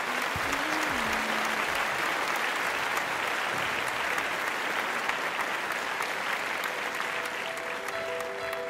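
Audience applauding steadily, fading toward the end. Near the end, a piano backing track begins with a few sustained notes.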